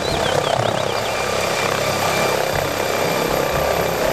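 MD Explorer helicopter hovering, its rotor and turbine making a steady noise.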